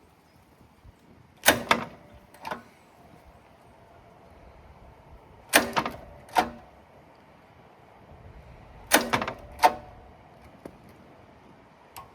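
Three pulls on a Hyundai scarifier's recoil starter, about three and a half seconds apart, each a quick cluster of sharp rasping clacks. The engine never fires.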